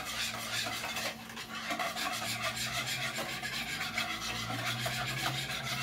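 A spoon stirring cold gazpacho in a large plastic tub (Tupperware), scraping against the sides in a quick, even run of strokes about three a second, mixing in salt and pepper.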